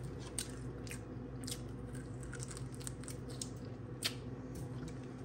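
A person chewing a mouthful of food close to the microphone, with soft, scattered wet mouth clicks, over a steady low hum.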